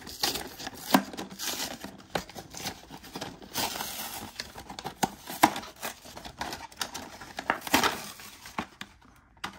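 A toy's cardboard blister card and clear plastic blister being torn open and crumpled by hand: irregular tearing, crinkling and sharp crackles, going quiet near the end.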